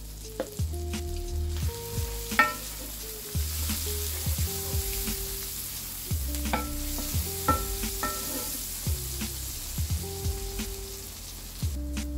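Chopped shallots and garlic sizzling in butter in a cast iron skillet, stirred with a wooden spoon, with a few sharp taps of the spoon against the pan.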